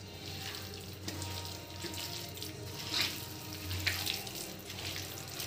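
A hand squeezing and mixing chicken in a thick curd-and-spice marinade in a steel bowl: repeated wet squelching strokes, about one a second.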